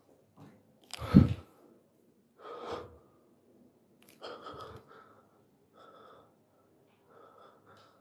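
A man's short breathy huffs and gasps, one after another, the loudest about a second in.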